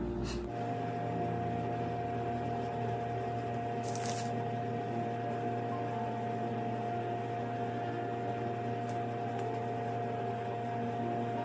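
Steady mechanical hum from a running appliance, with a few constant tones, a brief crackle about four seconds in and faint clicks near the end.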